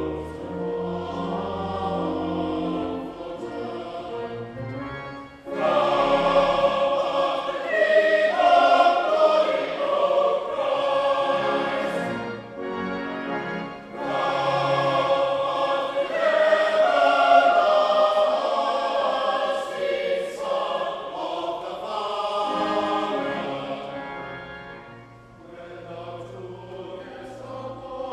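Choir singing a liturgical choral setting with organ accompaniment: held low organ notes, then the full choir comes in loudly about five seconds in, easing off near the end.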